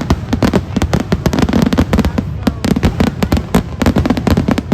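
Fireworks finale: a rapid, continuous barrage of bangs, many a second, with no let-up.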